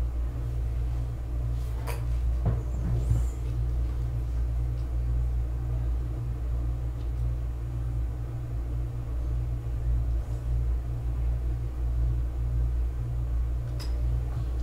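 Steady low background hum, with a few faint clicks about two seconds in.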